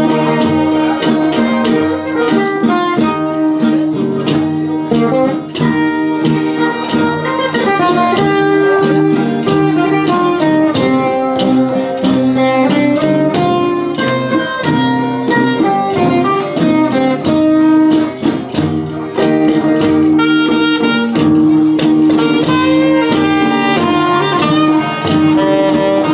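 Amateur musicians playing a pop tune on acoustic guitars and violin, with plucked guitar notes under held melody notes.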